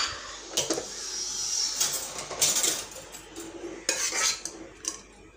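A metal spoon scraping and clinking inside a pressure cooker as boiled chana dal is stirred, to check whether it has cooked soft. A few separate scraping strokes, dying away near the end.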